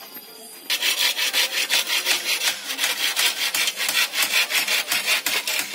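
Hand saw cutting through bamboo, quick even back-and-forth strokes that start suddenly about a second in and keep going.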